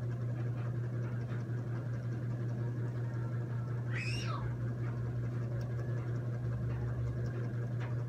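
A cat meows once, a short high call about four seconds in, over a steady low hum.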